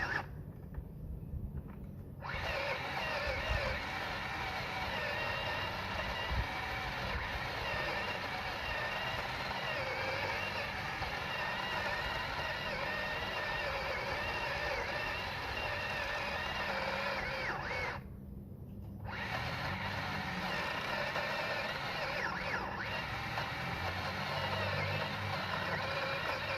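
Cordless electric pole saw's motor and chain running with a steady whine. It cuts out briefly at the start and again about two-thirds through, as the trigger is released between cuts.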